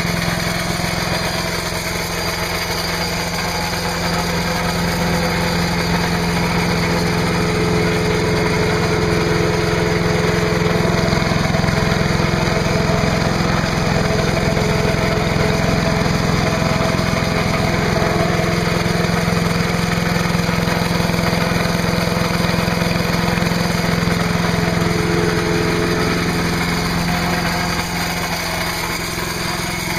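5 HP Briggs & Stratton horizontal-shaft engine on an MTD chipper/shredder, running at a steady speed. It runs smoothly after basic maintenance: new spark plug, new air filter, fresh oil and clean gas.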